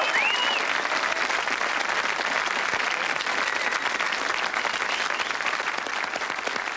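Studio audience applauding, a dense, steady clatter of clapping that eases slightly toward the end.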